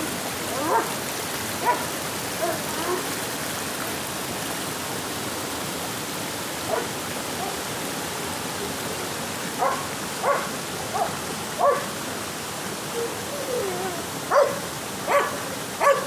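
A dog gives a dozen or so short barks and yips at irregular intervals, over the steady rush of a rocky stream flowing between boulders.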